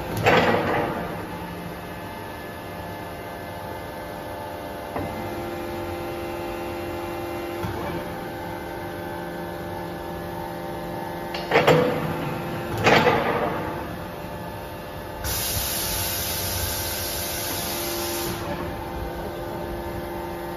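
Hydraulic power unit humming steadily as it drives a rotating excavator wood grapple through its turning and jaw movements. Sharp clunks come about a second in and twice a little past halfway, and a loud hiss lasts about three seconds near the end.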